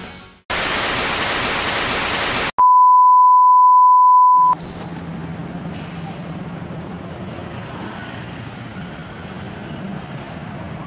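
Intro sound effects: about two seconds of loud hiss like TV static, then a steady, loud high beep for about two seconds, both cutting off abruptly. Then city street traffic, with motorbikes and cars passing.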